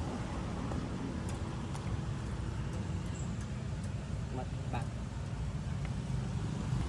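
Steady low rumble of roadside traffic, with a few faint short clicks over it.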